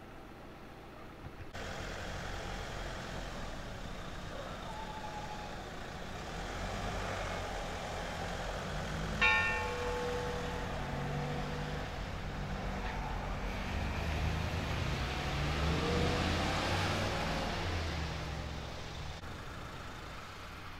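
A motor vehicle passing, its engine and road noise growing louder to a peak about two-thirds of the way through and then fading. A short pitched beep sounds about nine seconds in.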